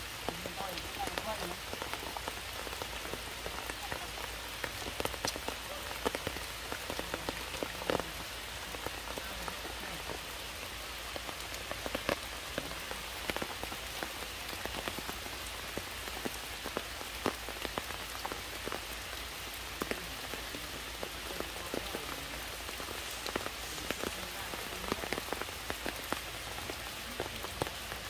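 Steady rain falling on broad leaves and wet stone, a continuous hiss scattered with many small drop ticks.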